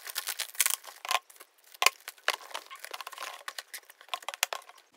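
Parcel packaging crinkling and crackling as it is handled and opened, with several sharp clicks among the crackles.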